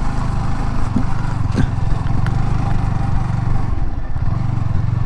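Motorcycle engine running steadily at low speed, with a steady low engine note.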